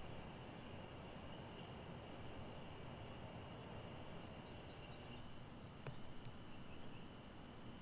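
Faint steady chorus of night insects such as crickets calling, with soft outdoor background noise. A couple of faint clicks come about six seconds in.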